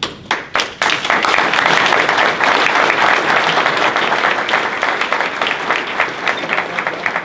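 Audience applauding: a few separate claps at first, then about a second in it fills out into steady applause.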